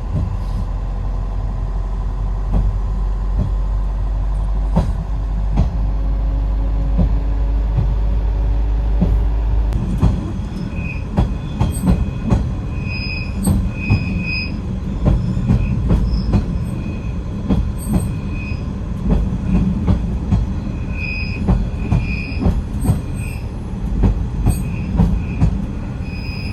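Asa Kaigan Railway DMV (dual-mode bus-train) running in rail mode, its motor droning steadily. From about ten seconds in, its steel wheels knock over the track in quick irregular clicks and squeal briefly and repeatedly at a high pitch.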